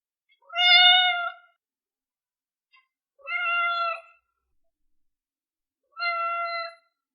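Very young kitten crying: three drawn-out, high, steady-pitched mews about two and a half seconds apart, the loudest first. These are the distress calls that a kitten under a month old makes to summon its mother.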